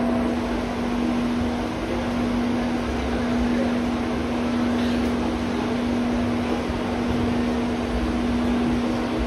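Steady machine hum inside an IE-TRAM electric bus, with one constant low tone over an even rushing noise, unchanging throughout.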